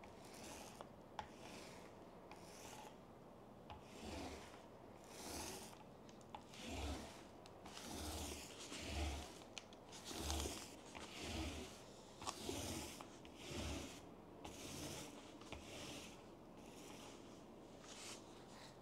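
Paint roller rolling paint across a tabletop in faint, regular back-and-forth strokes, about two a second.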